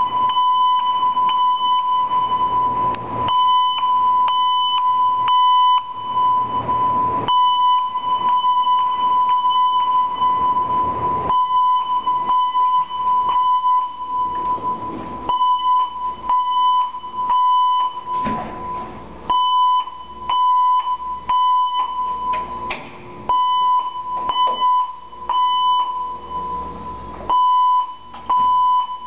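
Fire alarm bell on a Mircom FA-1000 system ringing during a bell test, giving a loud, steady ringing tone. It rings continuously for about the first ten seconds, then in short bursts of uneven length with gaps between.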